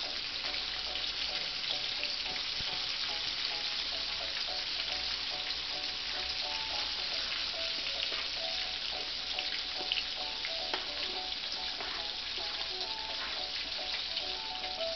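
Floured pork chop frying in hot oil in a cast-iron skillet: a steady sizzle full of small crackling pops, with a couple of louder pops about two-thirds of the way through.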